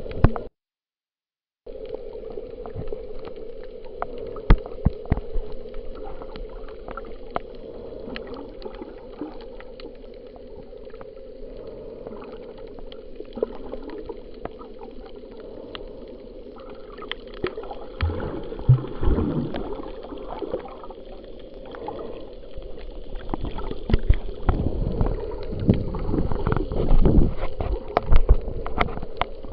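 Underwater sound picked up by a camera in a waterproof housing: a steady muffled hum with scattered sharp clicks. The audio drops out briefly about a second in, and in the second half low sloshing thumps come and go as the camera is moved through the water.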